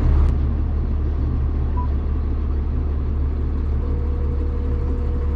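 Tractor engine idling steadily, a continuous low hum with no change in speed.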